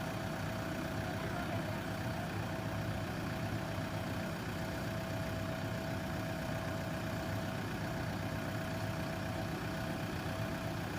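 JCB backhoe loader's diesel engine running steadily, with a thin steady whine over the engine drone.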